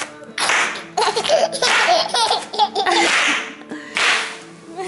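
A toddler laughing in repeated bursts while being bounced onto bubble wrap, the plastic crackling and popping under his feet.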